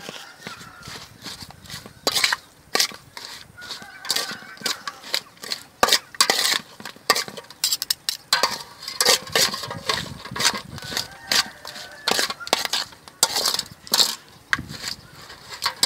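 Irregular clicks, knocks and clatter of food being prepared with kitchen utensils, with a voice faintly in the background.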